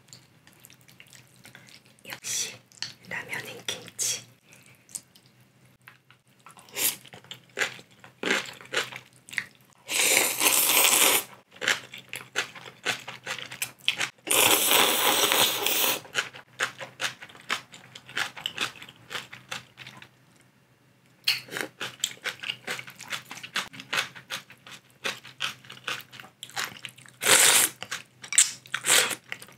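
Close-miked eating of spicy instant ramyeon and cabbage kimchi. Two long, loud noodle slurps come about 10 and 15 seconds in, with a shorter one near the end, and wet chewing and crunching in between.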